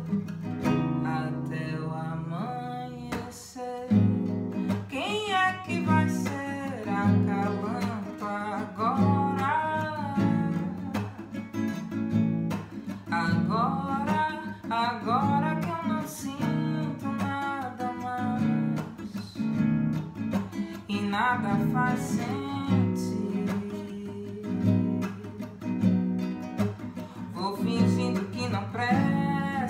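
A woman singing, accompanying herself on a nylon-string classical guitar, strumming and picking chords. Her voice comes in phrases with pauses while the guitar carries on underneath.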